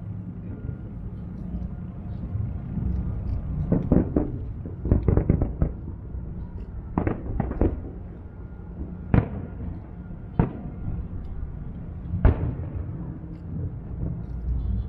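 Aerial firework shells bursting: a quick run of bangs about four and five seconds in, then single bangs every second or two.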